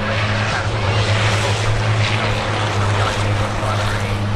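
Race trucks' big diesel engines running hard in a close pack through a corner: a steady low drone with a rushing noise over it.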